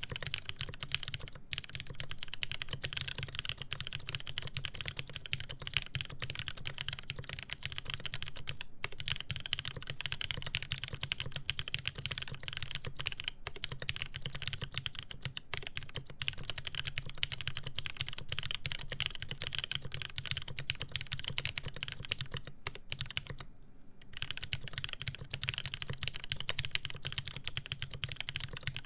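Fast, continuous typing on a mechanical keyboard with lubed Cherry MX Speed Silver linear switches on a polycarbonate plate, keystrokes clacking with deep thocky bottom-outs, with a brief pause about three-quarters of the way through.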